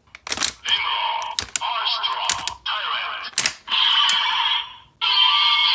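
Sharp plastic clicks of Ultraman Z toy medals being handled and slotted into a toy device, between short bursts of the toy's tinny electronic voice and sound effects. About five seconds in, a steady electronic sound starts from the toy's speaker.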